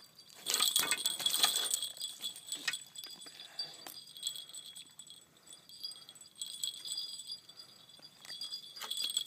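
Long-nosed pliers clicking and scraping in a catfish's mouth as the hook is worked free on pavement, the clatter loudest in the first two seconds and again near the end. A steady high-pitched ringing runs behind it and drops out for a second or so in the middle.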